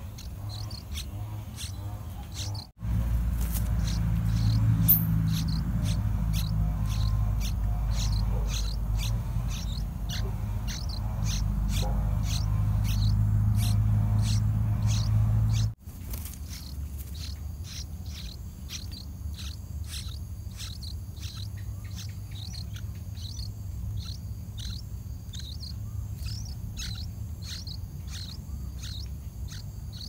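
Yellow-vented bulbul nestlings giving short, high begging chirps, repeated about twice a second. A loud low rumble comes in suddenly about three seconds in and cuts off suddenly near the middle.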